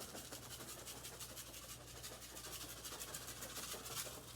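Uncooked rice being scattered onto carpet: a rapid, even patter of faint high ticks.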